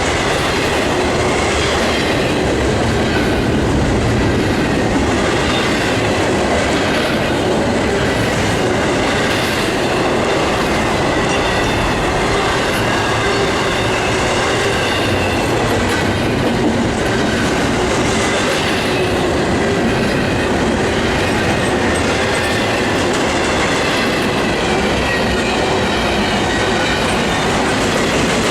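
Intermodal freight train cars rolling past close by: a steady, loud rumble and clatter of steel wheels on the rails, with a faint high wheel squeal.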